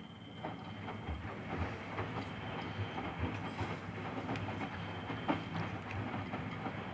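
Miele front-loading washing machine spinning, its drum knocking and rattling with repeated low thumps over a steady running drone. The drum swings heavily in the spin because its shock absorbers are worn out.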